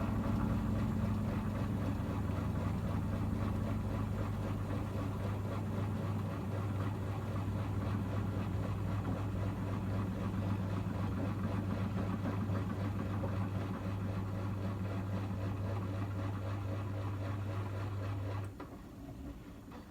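Miele washing machine running with a steady hum, cutting off suddenly near the end.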